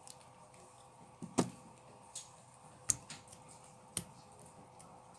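Metal tweezers clicking and tapping against an iPhone XR's rear camera lens ring and glass back while the broken lens cover glass is picked out. A few sharp, separate clicks, the loudest about a second and a half in, with others near three and four seconds.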